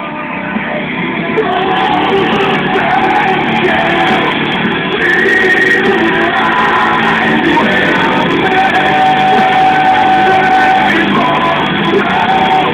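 Rock music with loud, shouted singing and guitar, growing louder over the first two seconds.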